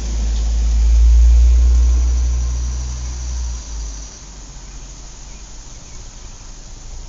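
A car drives past: a low rumble that swells to its loudest about a second in and fades away by about four seconds, leaving steady outdoor background noise.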